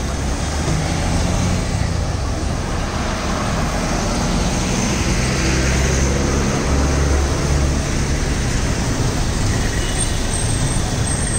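Steady rumble and hiss of road traffic passing on a city street.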